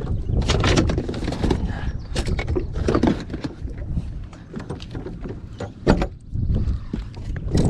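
Clatter and knocks of gear being rummaged through in a bass boat's deck storage compartment as a landing net is pulled out, with a sharp knock about six seconds in. Wind rumbles on the microphone throughout.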